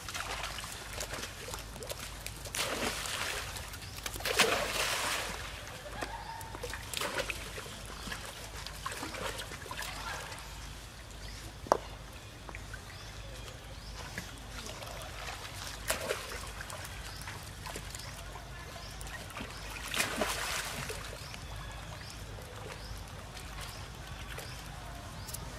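Water splashing and sloshing as macaques swim and move about in a pool, with a series of louder splashes, the strongest about four to five seconds in and others near the middle and later. A single sharp click sounds near the middle.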